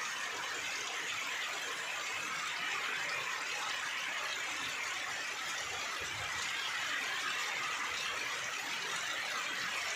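Heavy rain pouring steadily onto trees, leaves and grass, a dense, even patter with no let-up.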